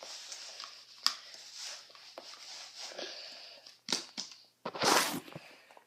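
Rustling, crackling and small knocks of headphones and a microphone being handled and adjusted close to the mic, with a sharp click about a second in and a louder brief rush of noise about five seconds in.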